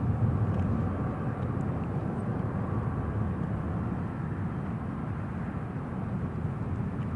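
Distant jet airliner engines, a steady low rumble that eases slightly.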